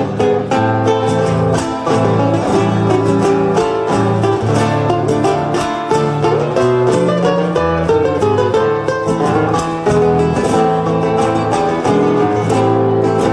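Instrumental folk music without singing: plucked and strummed guitars over a moving bass line, playing a song's introduction.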